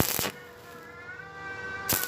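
Stick-welding arc on thin square tube struck in short bursts: a loud crackle at the start and another near the end. Between them a long, wavering high-pitched tone sounds.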